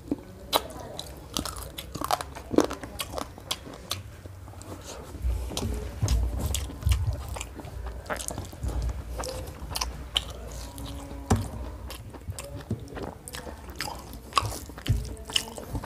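Close-miked chewing of a mouthful of rice and chicken curry: wet lip-smacking with many short clicks of lips and teeth, and a few soft low thumps.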